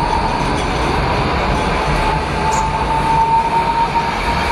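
Tram running past the platform: a steady high whine that rises slightly in pitch over the low rumble of its wheels on the rails.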